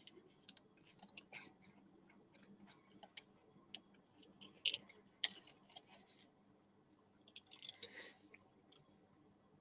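Scissors snipping through a laminated tattoo transfer sheet, with faint scattered cuts and paper rustles; the loudest snips come a little under five seconds in, with a cluster of them near eight seconds.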